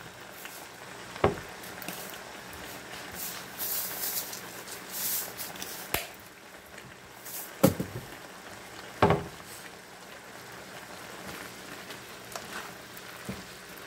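Cabbage soup boiling gently in a nonstick pan, a steady low bubbling hiss, with several sharp knocks and clinks of a utensil against the pan, and stirring with a plastic spatula near the end.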